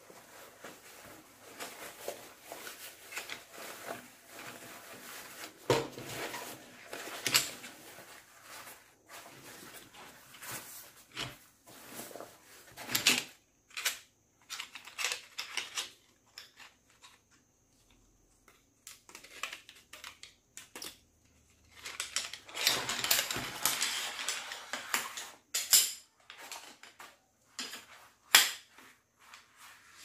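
Rustling of a folding camp chair's nylon fabric seat being unrolled and handled, mixed with light clacks and clinks of its lightweight metal pole sections knocking together and being pushed into the plastic hub. There are a few sharp clicks, the loudest near the end.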